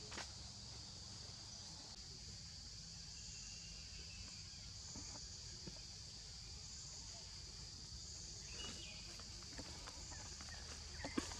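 Steady insect chorus: a continuous high-pitched buzz with a second layer above it that swells and fades every second or two. A few faint clicks stand out, the sharpest near the end.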